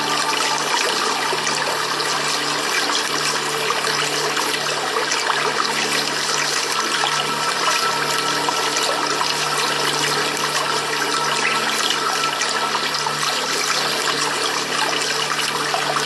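Steady running water, an even rushing sound, with faint sustained music tones underneath.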